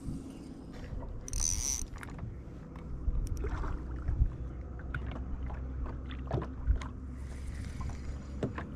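Lake water lapping and slapping against a small boat's hull, with a low wind rumble on the microphone and scattered small clicks and knocks. There is a short hiss about a second and a half in.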